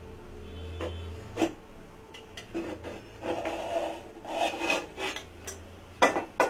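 A spoon scraping and knocking against a cooking pot while stirring the biryani rice: rough scraping strokes, with sharp clinks in between and a pair of louder knocks near the end.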